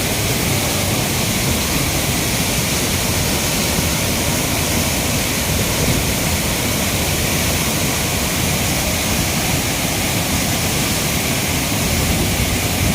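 Steady, loud rushing roar of a waterfall's falling water.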